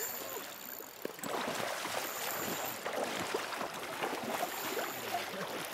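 River water splashing and sloshing around a hooked king salmon as it is landed in the shallows, with many small irregular splashes over the rush of the current. The splashing grows busier about a second in.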